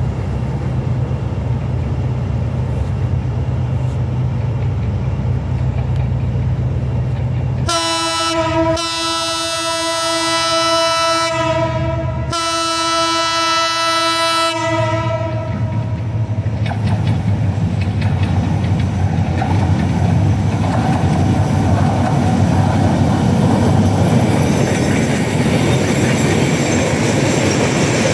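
EMD GT38ACL diesel locomotive passing at speed with a train of empty oil tank wagons. About eight seconds in its horn sounds three times, a short blast and then two long ones. The engine's rumble and the rushing, clattering noise of the wheels on the rails then grow louder as the tank wagons roll past.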